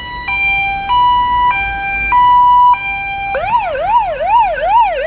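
Emergency vehicle siren sounding a two-tone hi-lo pattern, switching pitch about every half second; about three seconds in, a fast rising-and-falling yelp takes over at a bit over two sweeps a second.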